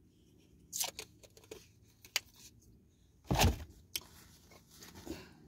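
Handling noises from a plastic juice bottle being capped and put away: a few light clicks and rustles, then one heavier thump a little after three seconds in.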